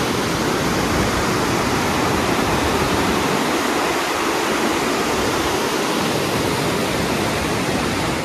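Mountain river rushing over boulders and rapids: a steady rush of white water.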